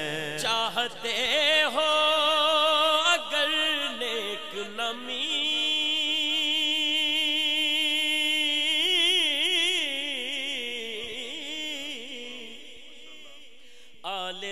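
A man's unaccompanied voice reciting a naat, drawing out long melismatic notes with a strong vibrato. The last long note fades away gradually over the final few seconds.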